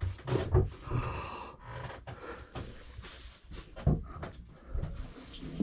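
Handling noise in a small wooden cabin: irregular rustling and light knocks as the camera brushes against a long-haired dachshund's fur and harness while it is carried about.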